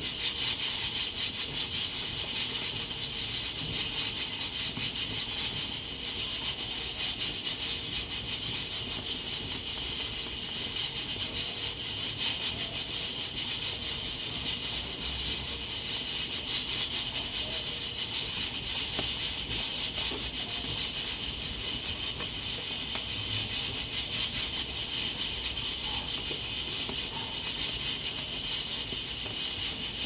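Nigro external-lock pressure cooker hissing as steam escapes through its valve: a steady high hiss with a fast flutter, the sign that the cooker is up to pressure and cooking.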